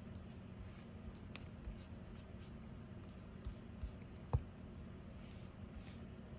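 Faint scratchy rubbing of hands and an inked pad over a paper stencil, with a few soft taps and one sharper tap about four seconds in, over a low steady hum.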